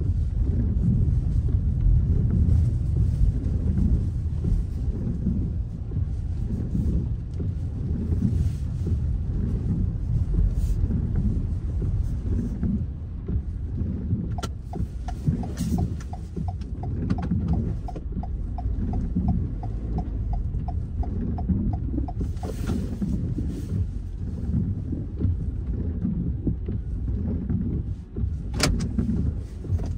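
Car cabin while driving: a steady low engine and road rumble. In the middle a run of evenly spaced ticks, about three a second, lasts for several seconds. A single sharp click comes near the end.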